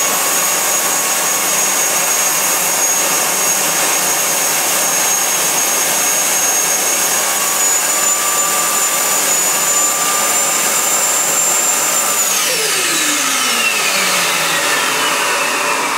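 Turbocharger gas turbine running with a steady high whine over a loud rushing roar. About twelve seconds in, the whine begins to fall steadily in pitch: the turbine spooling down after shutdown.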